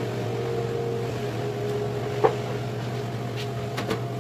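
Steady mechanical hum of an open soda vending machine, typical of its refrigeration unit running, with a single short knock about two seconds in.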